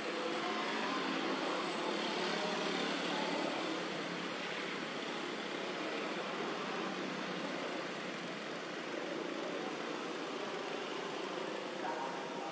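Steady background noise of distant motor traffic, a little louder for the first few seconds.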